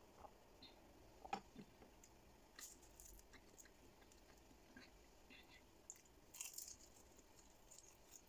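Faint close eating sounds: a knock about a second in, then a crisp fried turon spring roll being bitten and chewed, with small crackly crunches around three seconds in and again late on.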